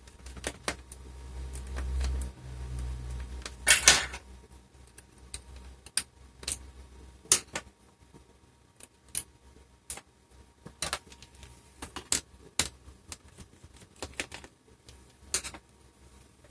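Screwdriver work on the screws of a laptop's screen bezel: scattered sharp clicks and taps of the tool and the screws against the plastic. A low hum runs for about three seconds near the start, and there is a louder click about four seconds in.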